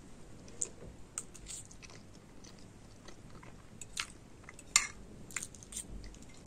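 A person chewing a mouthful of güllaç, the milk-soaked rice-wafer dessert with hazelnuts, with soft crunching and scattered short clicks, the sharpest nearly five seconds in.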